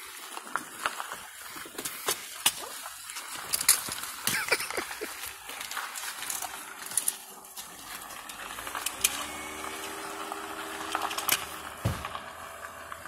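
Luggage being unloaded from an SUV's rear cargo area: bags rustling, and repeated sharp knocks and clicks as items and suitcases are moved. From about two-thirds of the way in, a steady low hum with several even tones runs underneath.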